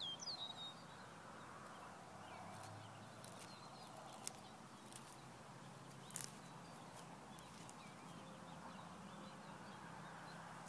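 Quiet outdoor ambience with a faint steady low hum and a few faint chirps, broken by two short sharp clicks about four and six seconds in.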